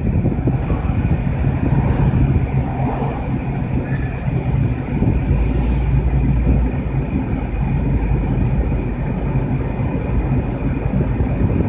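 Car driving at steady speed on a paved road, heard from inside the cabin: a steady low rumble of engine and tyres, with a faint steady high whine above it.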